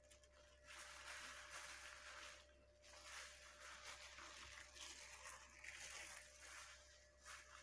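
Faint rustling and squishing of a plastic carry-bag glove working indigo dye paste into hair and parting the hair, in a few stretches of a second or two.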